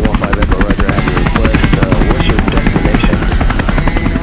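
Helicopter in flight: steady rapid rotor chop over engine noise. Music plays over it from about a second in.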